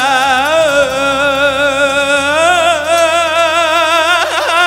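A male voice sings an Arabic devotional song, drawing out one syllable in a long, unbroken melismatic run with a wide, even vibrato, and ends with a quick ornamental flourish near the end.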